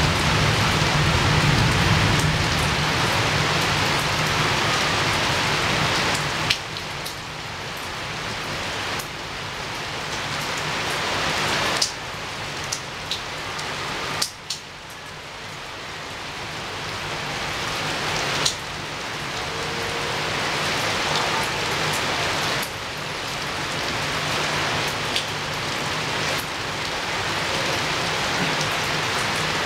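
Steady heavy rain falling against a window, swelling and easing every few seconds, with a few sharp drip ticks. A low rumble fades out in the first couple of seconds.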